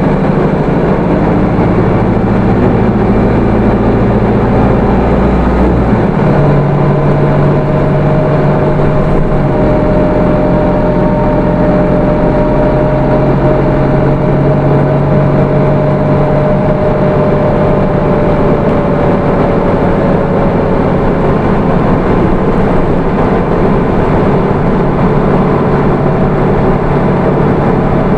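Hino Rainbow II city bus (SDG-KR290J1) running along, its 4HK1 four-cylinder diesel and automatic transmission working steadily. The low engine note changes about six seconds in, and a faint whine runs on for about fifteen seconds, falling slightly before it fades.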